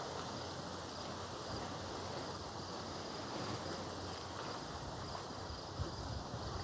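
Outdoor ambience: a steady hiss with faint, high insect chirping that pulses at an even rate.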